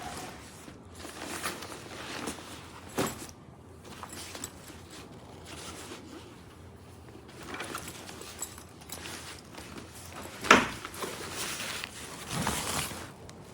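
Zippers on a fabric duffel bag being run open and shut in several short strokes. A sharper knock about three seconds in, and a louder one about ten and a half seconds in, come from the bag being handled.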